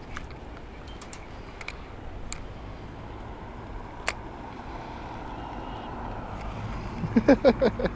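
Steady low rumbling background noise with a few faint, separate clicks. A man's voice starts near the end.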